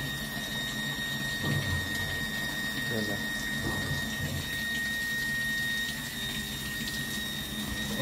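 Water running steadily into the tub of a Samsung top-load washing machine through its water inlet valve, a test fill to check whether the valve lets water in.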